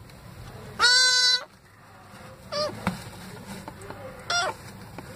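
Kitten mewing: one long, loud cry about a second in, then two short mews that bend in pitch.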